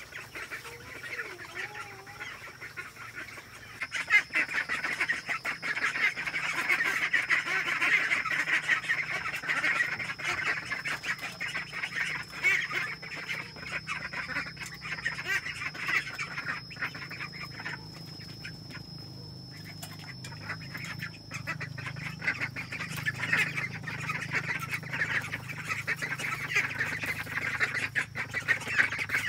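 A flock of white domestic ducks quacking together in a continuous clamour. It swells about four seconds in, eases off a little past the middle, then builds again.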